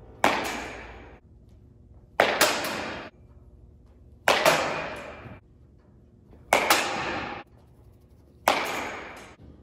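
Baseball batting practice: five sharp bat-on-ball cracks about two seconds apart, each followed at once by a second knock and about a second of fading noise.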